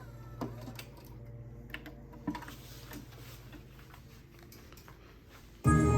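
Cassette deck transport being worked: scattered mechanical clicks and a faint low motor hum while the tape is wound back. Music playback from the tape starts suddenly near the end.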